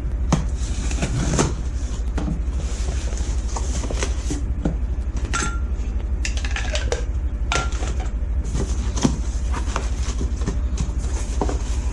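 A package being opened and unpacked by hand: rustling and crinkling of packaging with many scattered clicks and knocks, over a steady low hum.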